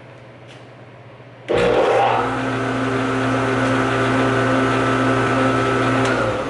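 Jet JJP-12HH 12-inch jointer-planer switched on about a second and a half in, its motor and helical cutterhead running steadily with no board feeding, then switched off near the end and beginning to spin down.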